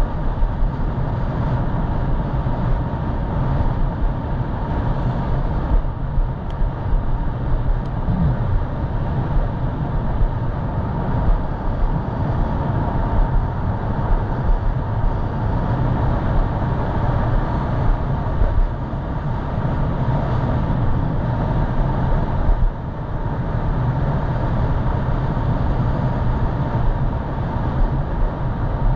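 Steady, rumbling wind buffeting on a head-mounted GoPro's microphone while riding an e-bike, loudest at the low end, with a brief dip about three quarters of the way through.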